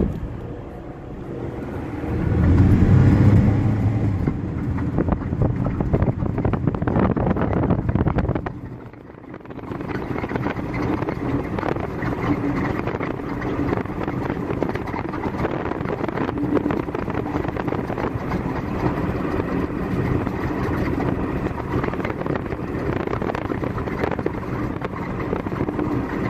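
A vehicle running: a louder low rumble swells a couple of seconds in, the sound dips briefly around nine seconds, then settles into a steady drone.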